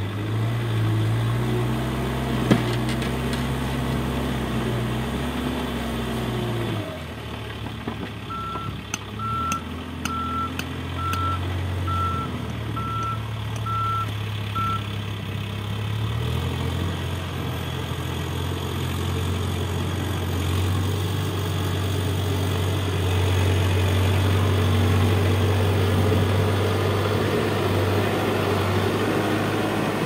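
Case backhoe loader's diesel engine running and working under load, its pitch dropping about a quarter of the way in and rising again around the middle, with a single sharp clank early on. A reversing alarm beeps steadily for several seconds in the middle.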